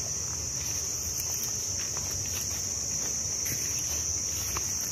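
A steady high-pitched drone of insects, with footsteps crunching on dry leaf litter.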